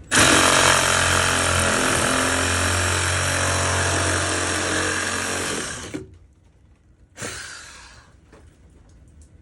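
Power saw cutting through the water heater's exhaust vent pipe, running steadily for about six seconds, then a second brief cut about seven seconds in. The pipe is being cut open to drain condensate water trapped in a sagging vent run, the exhaust blockage behind the heater's E110 error.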